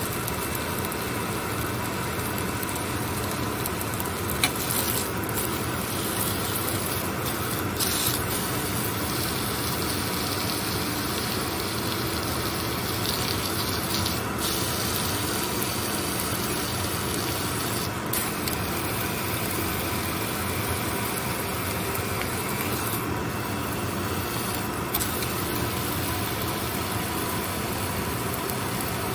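Beef sizzling as it sears in a hot stainless steel pan: a steady hiss with a few light clicks of metal tongs on the pan as the meat is turned.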